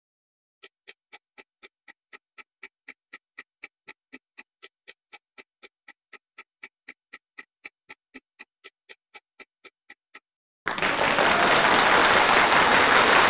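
Countdown-timer sound effect ticking, about four ticks a second, while the quiz timer runs down. Near the end the ticking stops and a loud, steady rushing noise sound effect starts suddenly as the answer is revealed.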